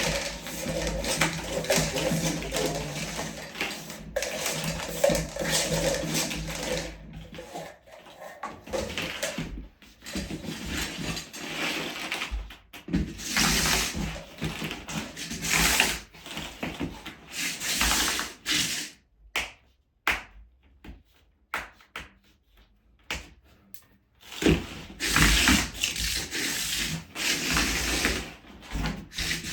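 Irregular rubbing and scraping by hand as a floor-heating cable is handled and laid into the studs of a plastic uncoupling membrane, in stretches of a second or two with short pauses between.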